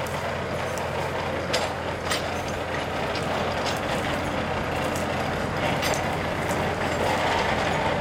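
Diesel engine of an overhead suspended monorail locomotive running steadily as it creeps along the elevated rail, with occasional sharp clicks. It grows slightly louder as it approaches.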